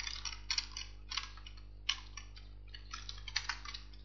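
Computer keyboard keystrokes: irregular typing clicks, about three or four a second in short runs, over a faint steady low hum.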